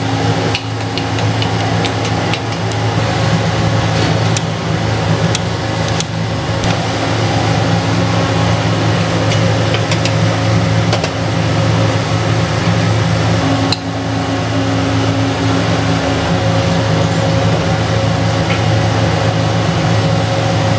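Steady hum of running kitchen machinery: a low drone with a couple of higher held tones, with a few light clicks and taps on top.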